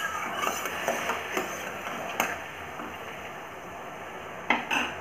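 A spoon stirring sugar syrup at a rolling boil in a kadhai, clinking and scraping against the pan several times in the first two seconds over a steady bubbling hiss. Two sharper knocks of the spoon on the pan come near the end.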